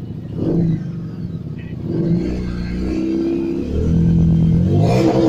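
Harley-Davidson motorcycle's V-twin engine being revved: a short blip about half a second in, then revs that build from about two seconds and hold, with another sharp rev near the end.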